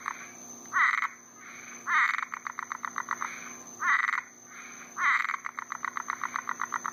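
A night chorus of frogs calling around a pool. Short loud calls come every second or two, each running into a rapid pulsing trill. A steady high-pitched tone runs underneath.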